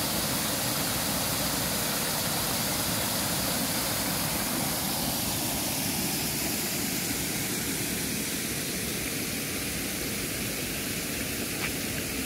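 Steady rushing water of a small woodland waterfall, easing a little about halfway through.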